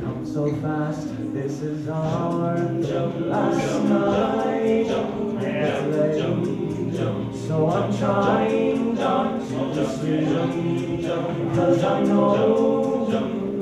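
All-male a cappella group singing: a lead voice over layered backing harmonies.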